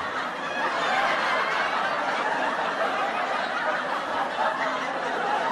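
Audience laughter: a crowd laughing steadily after a joke's punchline.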